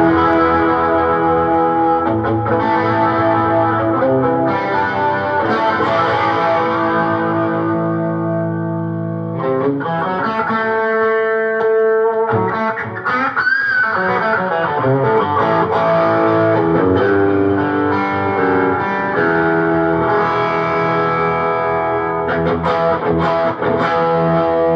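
Telecaster electric guitar played through a pedalboard into a Fender Deluxe Reverb 1965 Reissue amp set at about 6–7 volume: held, ringing chords with pedal effects. About halfway through it thins to single notes with a string bend, then the chords return.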